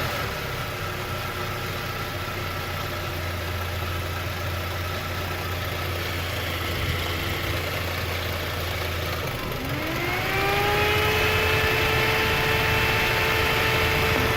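ZMZ-406 inline-four petrol engine running warm, with the knock that the owner hears only once it reaches about 80 degrees. About ten seconds in, a whine rises in pitch and then holds steady as the sound gets a little louder.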